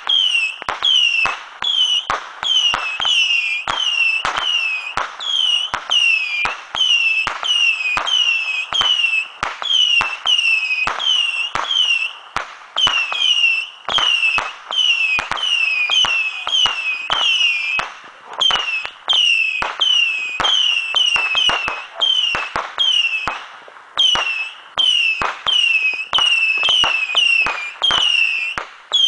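Saturn missile battery firing a rapid string of small whistling rockets: each shot is a pop followed by a short falling whistle, about two a second, with a few brief pauses.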